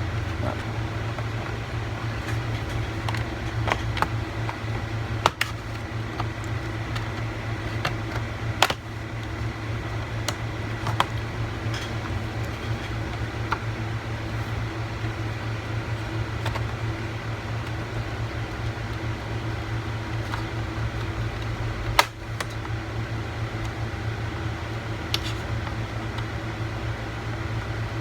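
Plastic snap clips of a laptop's bottom panel clicking and popping as a thin pry tool is worked around the edge, a scattered handful of sharp clicks, the sharpest about three-quarters of the way through. A steady low hum runs underneath.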